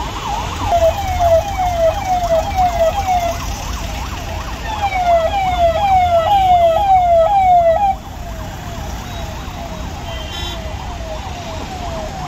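Emergency-vehicle siren sounding in quick falling sweeps, about two to three a second, over the low rumble of passing traffic. It is loudest just before about eight seconds in, then drops suddenly in level and carries on quieter.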